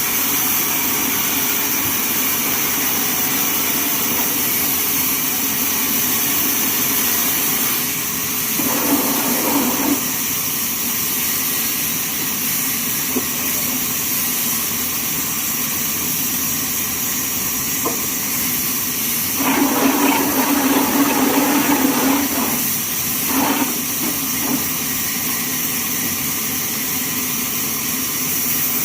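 Sawmill machinery running steadily with a constant hiss. It grows louder and rougher twice, for a second or two about nine seconds in and for a few seconds around twenty seconds in.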